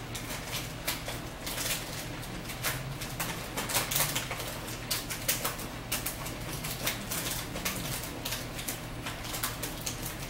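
Chewing and mouth sounds of someone eating close to the microphone: a stream of irregular small wet clicks and smacks, a few louder around the middle.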